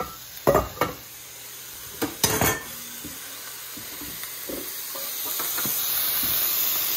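Beef chuck eye steaks sizzling in a stainless steel skillet just after being flipped. Several metal clanks of utensils against the cookware sound in the first two and a half seconds. The steady hiss grows louder over the last two seconds.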